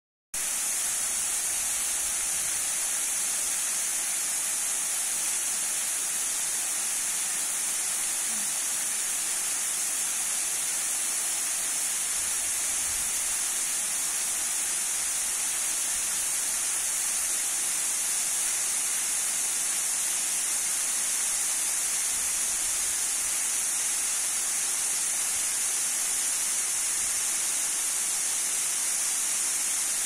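Small waterfall: thin streams of water falling and spattering down a mossy rock face, making a steady, bright hiss.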